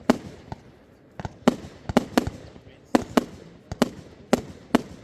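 Fireworks display: a rapid, irregular string of about a dozen firework bangs, two or three a second, each with a short echo trailing after it.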